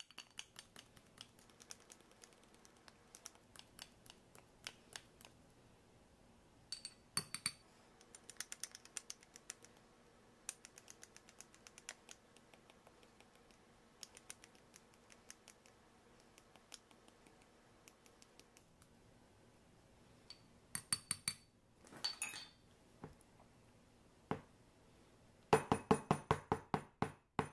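Metal measuring spoon clicking and scraping against a spice container and the rim of a glass mason jar while ground mustard is scooped and poured in, with light ticks throughout. Near the end, the glass jar is tapped down on the countertop in a quick run of about nine knocks, settling the spice layer.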